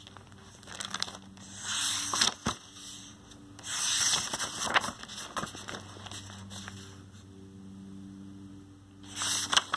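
A picture book being handled, its pages and cover rubbing and rustling in three short bursts. A faint steady hum runs underneath.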